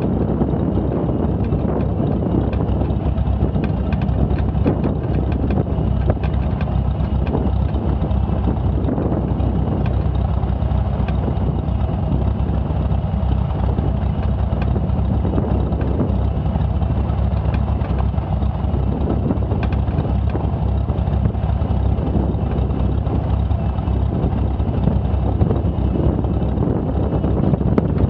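Cessna Skylane's six-cylinder piston engine running at low taxi power: a steady low drone from the engine and its slowly turning propeller.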